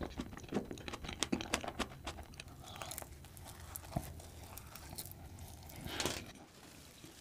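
Close-miked chewing of a mouthful of soft, cream-topped donut: wet clicks and smacks, dense for the first couple of seconds and then sparser, with a louder burst of mouth noise about six seconds in.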